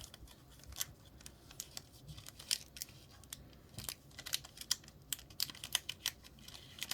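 A string of irregular light clicks and taps as small plastic miniature pieces and their packaging are handled by hand.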